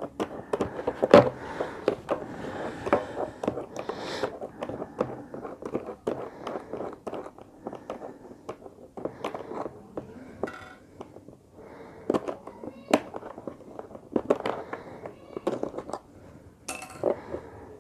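Plastic shell of an auto-darkening welding helmet being handled, with a string of small clicks, taps and rubs as a loosened nut on its side is unscrewed by hand.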